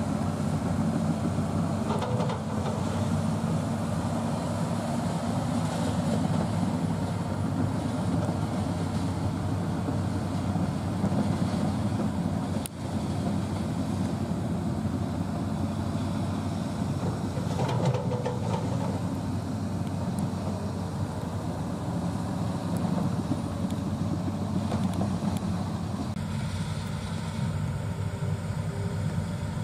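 Hitachi hydraulic excavator's diesel engine running with a steady, even hum.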